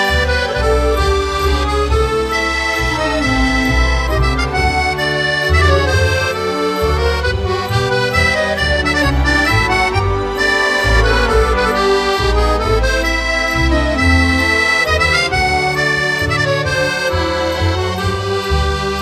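Background music with an accordion melody over a bass line.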